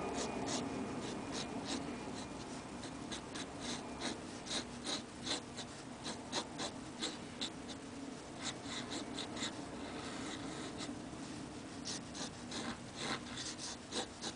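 Onoto fountain pen nib scratching across paper in quick short strokes, about two a second, with a short pause about two-thirds of the way through.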